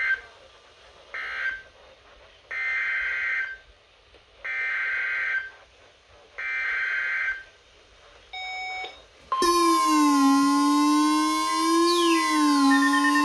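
EAS SAME digital data bursts. Two short bursts close out the previous alert as its end-of-message code, then three longer, buzzy bursts about a second apart carry the header of the next alert, followed by a short beep. About nine seconds in, a loud steady alert tone starts, with siren-like tones sliding up and down over it.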